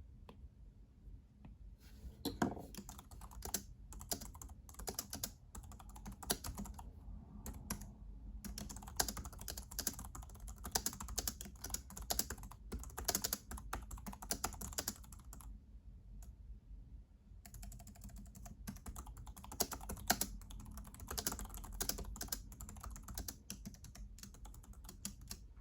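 JellyComb Bluetooth keyboard being typed on: irregular runs of soft key clicks, with a couple of short pauses.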